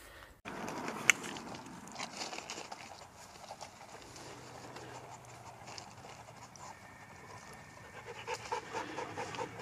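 Husky panting, quicker near the end, with one sharp click about a second in.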